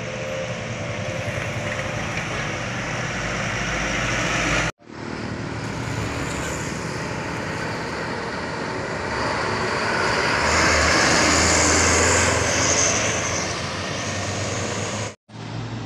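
Sugarcane trucks and other traffic driving past, with steady engine drone and tyre noise on the road. One vehicle passes closer and louder about two-thirds of the way through. The sound cuts out briefly twice.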